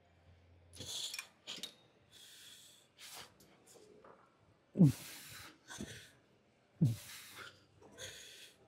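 A man's hard, forced breathing through the reps of a heavy lifting set: quick sharp breaths, with two louder short grunts falling in pitch, about five and seven seconds in, as the effort builds.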